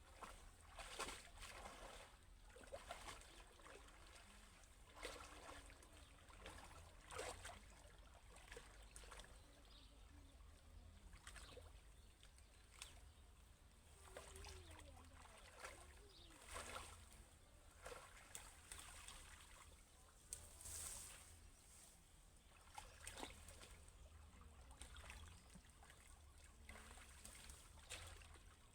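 Faint water splashing and trickling, broken by scattered short splashes and knocks every second or two.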